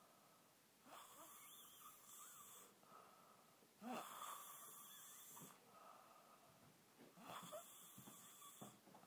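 Snoring: three slow, faint breaths, about three seconds apart.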